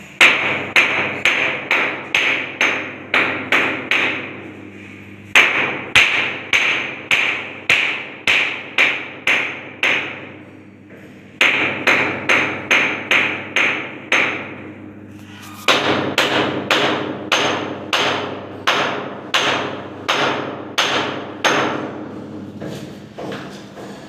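Hammer striking a concrete ceiling in sharp blows, about two a second, in four runs with short pauses between them. The ceiling is being sounded to find a buried wiring junction box, which shows itself by a change in the sound of the blows.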